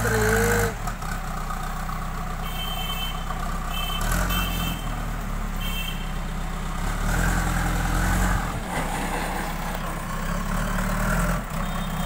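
JCB backhoe loader's diesel engine running and swelling twice under load as the front bucket scoops soil and lifts it. Its reversing alarm beeps four times, starting a couple of seconds in, and once more near the end.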